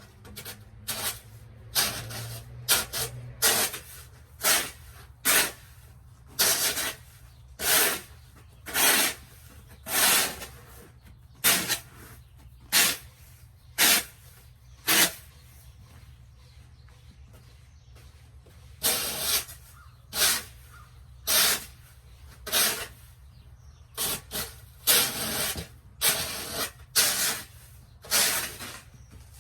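Footsteps crunching and swishing through deep snow, at about one step a second. They pause for a few seconds just past the middle, then go on.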